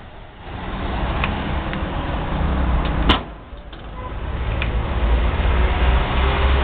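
An Iveco Daily 35C13 refrigerated van running with a steady low rumble. A sharp click comes about three seconds in, after which the sound drops away and builds back up.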